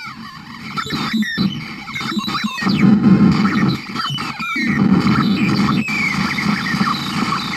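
Circuit-bent "Space War" toy sound chip played through an amp, giving harsh electronic noise and squeals: a low buzzing rumble with warbling, falling laser-like zaps above it, broken by a few brief dropouts.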